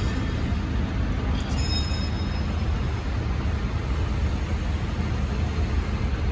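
Steady low machinery drone, like a running engine, holding the same level throughout.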